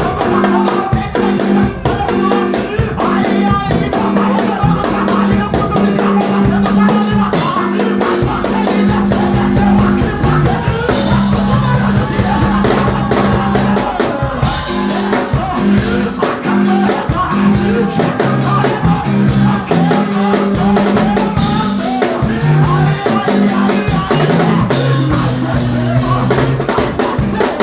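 A live worship band plays a fast, loud instrumental passage on drum kit and crashing cymbals over sustained low bass and keyboard-like notes.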